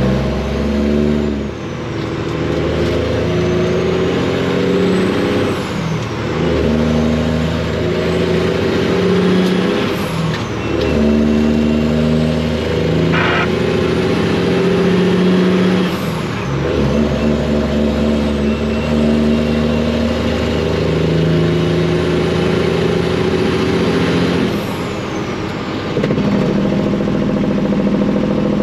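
Semi truck's Detroit diesel engine running under load at highway speed with loud pipes, its note shifting in pitch several times, with a turbo whistle rising and falling.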